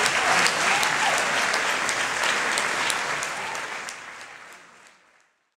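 Audience applauding, fading out over the last two seconds to silence.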